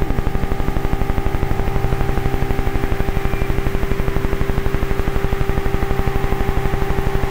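Improvised electronic music: a rapid, even pulsing throb with a held tone that slides down into place just after the start and sustains, while a higher tone fades out partway through.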